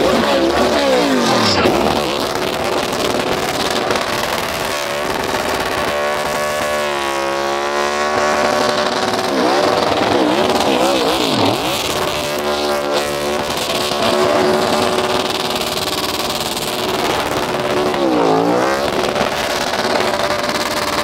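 NASCAR Cup Series stock car's V8 engine revving hard through a burnout, its pitch swooping up and down again and again as the rear tyres spin and smoke.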